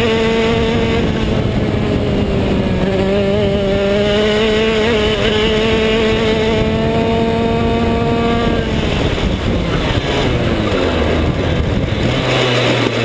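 125cc two-stroke shifter kart engine heard from on board at high revs, its pitch holding fairly level apart from a couple of brief dips. About nine seconds in the engine note breaks up and falls away as the kart slows, settling to a low steady tone near the end.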